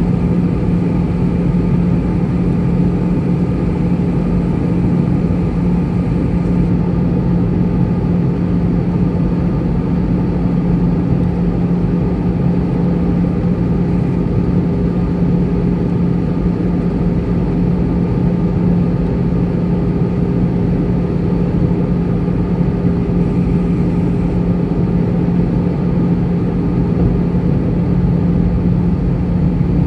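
Steady in-cabin drone of an Airbus A320-214 in flight, heard from a window seat over the wing: the CFM56 engines and airflow make a constant rushing noise with a strong low hum running through it.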